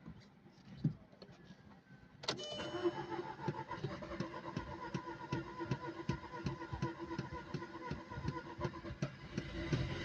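Volkswagen Polo's starter motor cranking the engine, cutting in suddenly about two seconds in and running on with a steady whine and rapid, even pulses for about eight seconds without the engine catching: a hard start.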